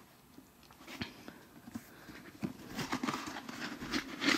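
Hands handling black nubuck leather work boots: irregular rustling, scuffing and light knocks as the boots are turned over and set down on a blanket. It grows busier in the second half, loudest just at the end.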